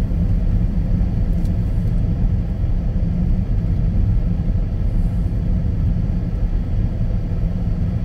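Steady low rumble of road and engine noise inside the cabin of a Jeep Patriot driving slowly on a snow-covered road.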